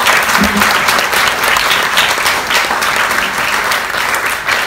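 An audience applauding a speaker at the end of his talk: sustained clapping from a roomful of people.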